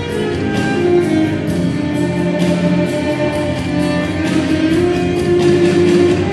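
Recorded music with long, held instrumental notes, played over loudspeakers to accompany a dance.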